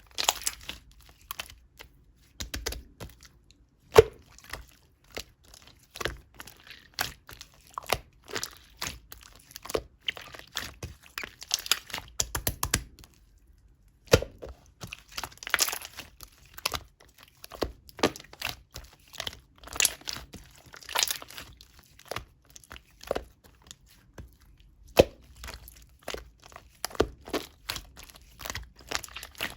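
Clear purple slime being worked by hand, making irregular sticky pops, clicks and crackles as it is pressed, stretched and folded, with a short pause about thirteen seconds in.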